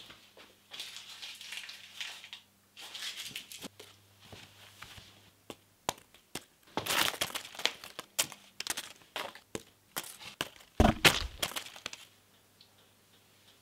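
Crumpled paper crinkling and crackling in repeated bursts, full of sharp crisp crackles. The loudest burst comes near the end and opens with a dull thump.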